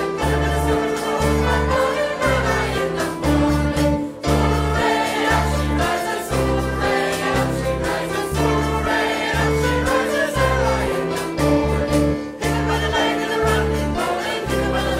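A live song played by a small band with singing over it, carried by a steady, repeating bass line.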